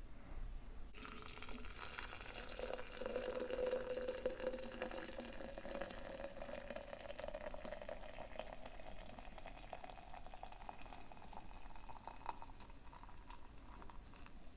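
Water being poured into a French press for tea, a steady pour whose pitch rises slowly as the pot fills.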